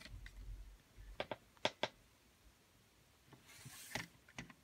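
Plastic LEGO truck model handled on a wooden surface: a few sharp clicks and taps of the bricks and wheels against the wood, and a brief rub as it is rolled along.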